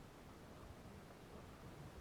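Near silence: a faint, even background hiss with no distinct sound.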